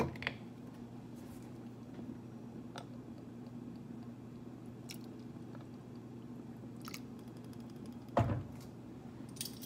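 Lemon juice being measured from a bottle into a metal measuring cup and added to a pot of stew: faint clicks from handling the bottle and cup over a steady low hum, with one dull knock about eight seconds in.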